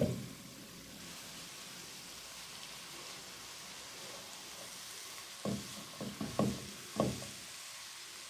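Chopped mushrooms, red pepper and grated vegetables sizzling softly in a non-stick pan, with a sharp thump at the start and a handful of knocks from a wooden spatula stirring the mix about five to seven seconds in.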